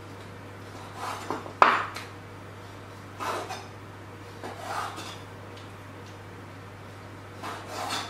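Chef's knife cutting raw chicken on a wooden chopping board: about five separate short strokes with some scraping, the loudest a sharp knock of the blade on the board about one and a half seconds in.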